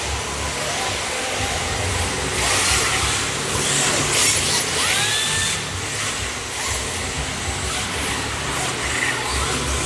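Electric RC drift cars running on a smooth indoor track: a steady hiss of sliding tyres mixed with the whine of small electric motors, loudest about four seconds in as a car drifts past close by.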